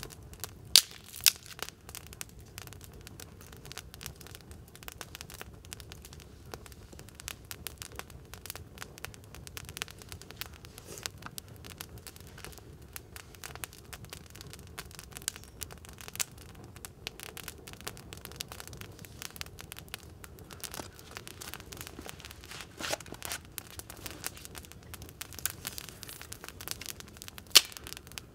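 Wood campfire crackling, with dense irregular snaps and a few sharp, loud pops about a second in and near the end.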